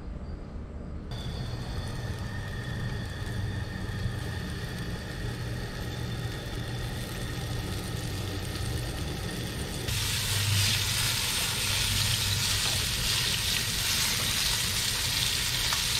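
Coated catfish pieces frying in oil in a pan on a propane camp stove. A low hum and faint sizzle at first, then about ten seconds in a loud, steady sizzle sets in.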